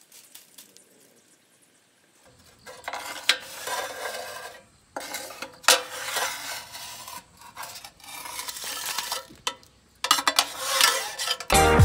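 A metal rod scraping and rasping inside the sooty steel fuel-feed box of a rocket stove, in four spells of a second or two with short pauses between. Music starts just before the end.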